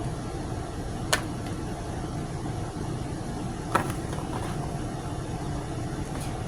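Steady low background rumble, like a running machine or appliance, with two sharp clicks: one about a second in and one a little past the middle.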